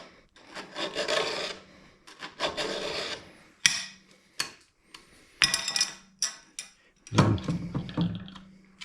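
Hand file rasping across a chainsaw chain's cutters in several separate strokes, with a few sharp metallic clicks in between.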